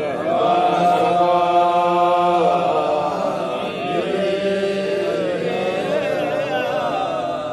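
Men's voices chanting a Sufi dhikr refrain: a long note held steady about a second in, then a drawn-out, wavering melody.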